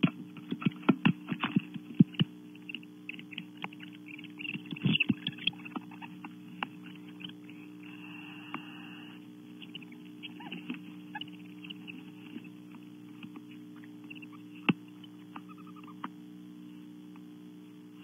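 Barn owls moving in a wooden nest cavity: a flurry of scratching and knocking, talons on wood, as a second owl arrives, then scattered single knocks. There is a short call about eight seconds in and a faint one near the end, over the steady electrical hum of the nest-cam microphone.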